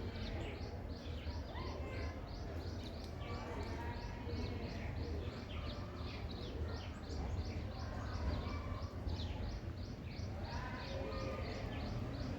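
A steady run of short high-pitched chirps, about three to four a second, over a constant low hum.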